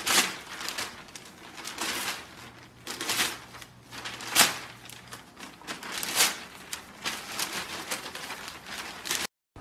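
Newspaper pages rustling and crumpling in repeated bursts as a golden retriever grabs and tugs at them with its mouth, with the sharpest crackle about halfway through.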